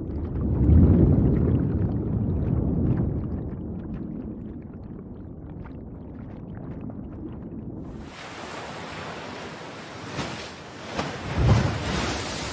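A low rumble, then about eight seconds in a sudden change to ocean surf: an even hissing wash of breaking waves, with one heavier wave near the end.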